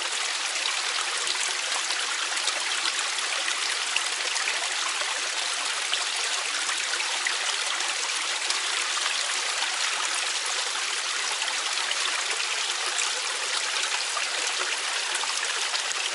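Mountain valley stream flowing over rocks: a steady, even rush of water with a bright hiss.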